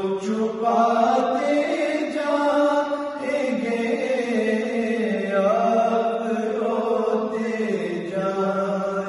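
Men's voices reciting an unaccompanied naat in a slow, chant-like melody, with long held notes that shift gradually in pitch.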